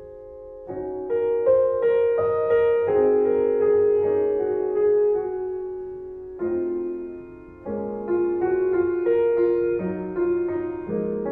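Soft solo piano music, chords and melody notes struck in phrases that each fade before the next begins.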